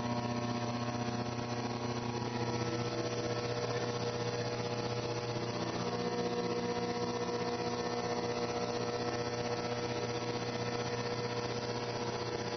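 Haas VF-2 vertical machining center milling a metal block with an end mill: a steady mechanical hum of spindle and cut, with several held tones over a hiss.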